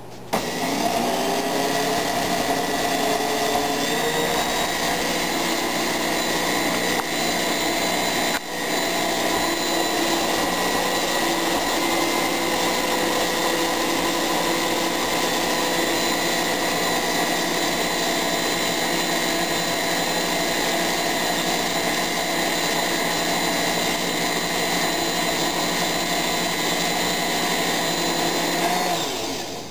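Electric stand mixer with twin beaters running in cake batter. Its motor whine rises in pitch as it spins up over the first few seconds, holds steady with a brief dip about eight seconds in, and winds down just before the end.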